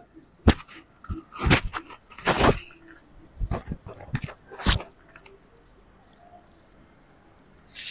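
Crickets chirping in a steady high trill. Over it come a few short rustles and handling noises, the loudest about one and a half, two and a half and nearly five seconds in.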